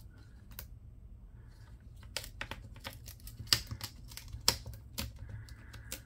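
Plastic screen bezel of a Dell Latitude 5480 being peeled off the display, its adhesive crackling in sharp, irregular clicks.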